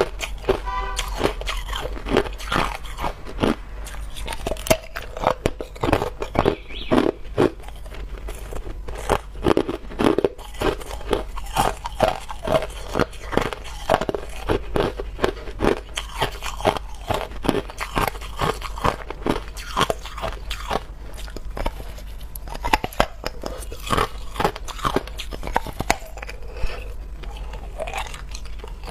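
Hard clear ice being bitten off and crunched between the teeth: a fast, irregular run of sharp cracks and crunches as chunks break off and are chewed.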